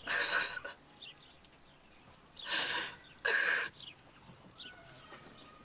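A crying boy sobbing: three sharp, breathy gasps, one at the start and two close together a little after the middle.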